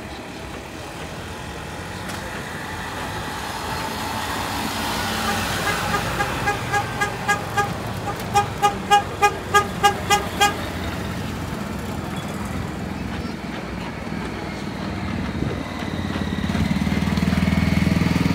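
A small vehicle horn tooting in rapid short beeps, about three a second, in two runs with a brief break. It sounds over crowd chatter and the hum of the utility-vehicle tugs towing the race cars. Near the end a tug's engine grows louder as it passes close by.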